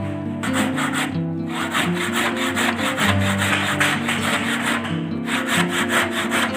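Handsaw cutting a thin wooden trim piece in quick back-and-forth strokes, starting about half a second in with short pauses about a second in and near the end. Background music with held notes plays underneath.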